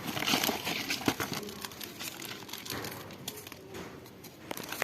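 Crinkling and rustling with many small clicks and knocks as things are handled and taken apart, loudest in the first second.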